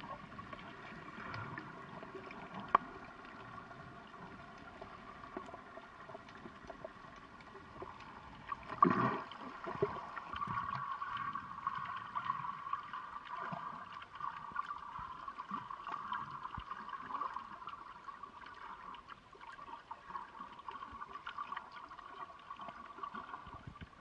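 Underwater ambience: water gurgling and bubbling steadily, with a louder gurgling surge about nine seconds in.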